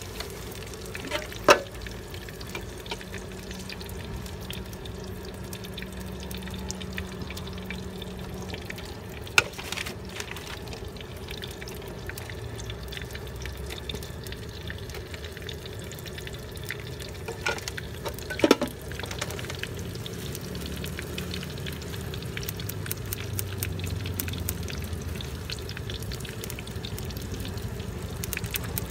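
Street-food vendor's utensils at work: a metal spoon knocks sharply against the pot a few times while peanut sauce is ladled over the portions, then scissors snip quickly near the end as greens are cut over the plates. A steady hiss with a low hum lies underneath.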